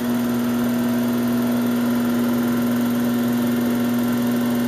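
Electric pottery wheel running, a steady unchanging electric hum.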